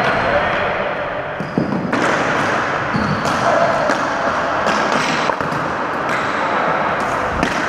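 Ball hockey play on a gym floor: sticks hitting the ball and the floor in sharp cracks about half a dozen times, echoing in the hall, over a steady din of players' voices.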